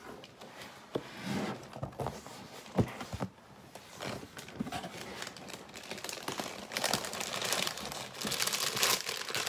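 A cardboard LEGO box being opened, with a few knocks. Then the plastic bags of pieces inside are handled and pulled out, rustling and crinkling, louder over the last few seconds.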